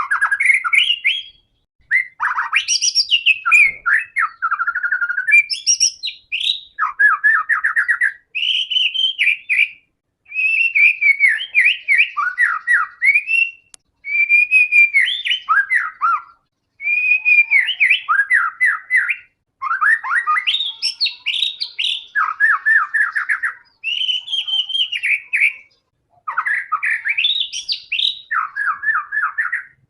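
White-rumped shama (murai batu) in full, continuous song: phrase after phrase of clear whistles and rapid, harsh trills, each about a second or two long with short pauses between.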